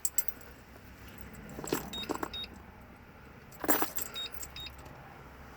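Car keys on a key ring jingling and clinking in three short bursts as the ring is dropped into place, with brief high metallic rings between the clicks.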